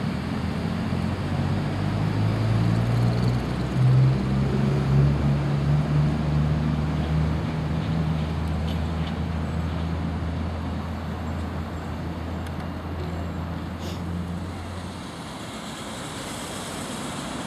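Class 66 diesel locomotive engine droning low and steady, swelling about four seconds in and dying away after about fifteen seconds. A hiss rises near the end.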